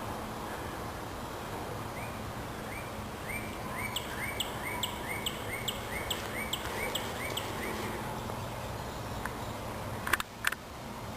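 A bird calling a run of about a dozen short, evenly repeated chirps, two to three a second, over steady outdoor background noise. Two sharp clicks near the end.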